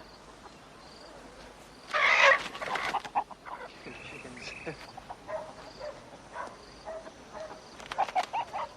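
Chickens squawking in a loud, harsh burst about two seconds in, with a cluster of short clucks near the end, over a faint, regular chirping in the background.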